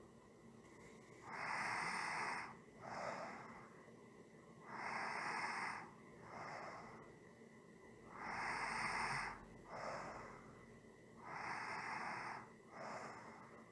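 A person breathing slowly and steadily through the nose or mouth, four breath cycles, each a longer rush of air followed by a shorter one, about one breath every three seconds.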